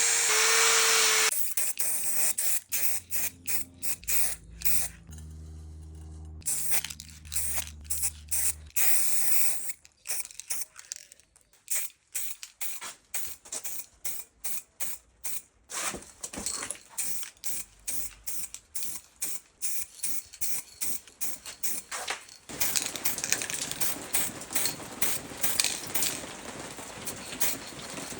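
Many short hisses of a spray can, one burst after another, with a longer, steadier hiss from about 22 seconds on: the bike's parts being spray-painted.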